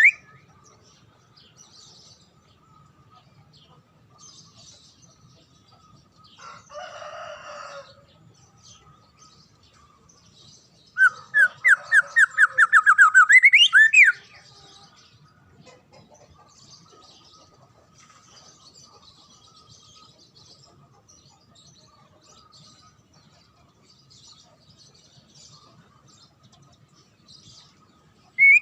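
A songbird calling: a short harsh rasping call, then about halfway through a loud, rapid run of about nine whistled notes that rise in pitch toward the end, with faint high twittering in the quiet stretches.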